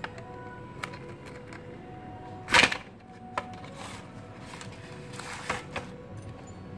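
Soft background music with sustained notes, over small clicks of needle-nose pliers working a car head unit's plastic frame. One loud, sharp crack comes about two and a half seconds in, and a smaller one near the end.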